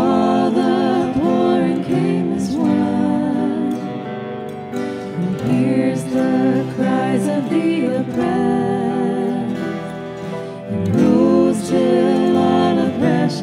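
Contemporary worship song: women's voices sing the melody over strummed acoustic guitars and band accompaniment.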